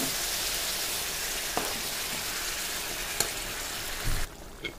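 Eggplant and tomato curry in tamarind gravy sizzling in a pan, with a metal spoon stirring and clicking against the pan a few times. The sizzling drops off suddenly near the end.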